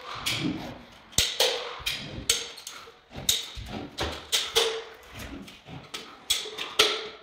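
Irregular sharp knocks and scrapes, a few a second, some with a short ring after them: hand work with tools on ceramic tile.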